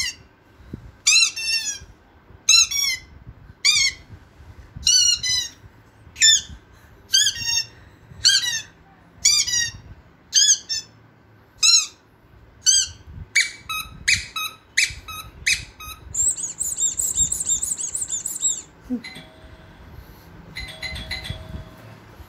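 Sound effect of repeated short, high-pitched squeaks about a second apart, coming quicker about two-thirds of the way through, then a steady high whistle-like tone for about two seconds. It is a sound played to get a dog's reaction.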